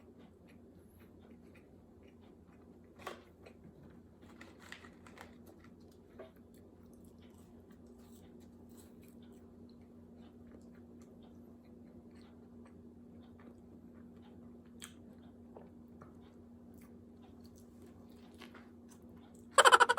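A person chewing a mouthful of burger close to the microphone, with soft wet mouth sounds and a few faint clicks. Near the end comes a sudden loud burst of rapid buzzy pulses.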